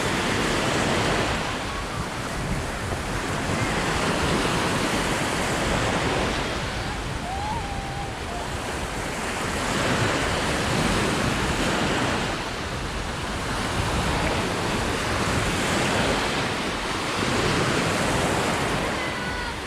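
Sea waves washing onto the shore, the surf swelling and falling back every few seconds.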